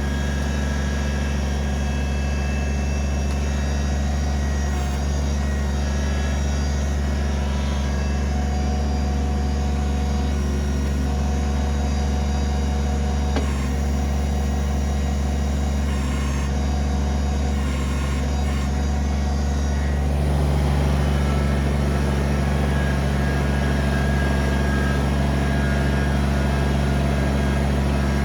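Kubota BX23S compact tractor's three-cylinder diesel engine running steadily; about twenty seconds in it gets a little louder, as under more throttle.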